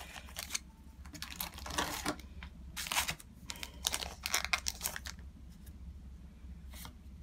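Foil Digimon trading-card booster pack crinkling and tearing as it is opened by hand, in a run of short crackling bursts over the first five seconds, then quieter handling.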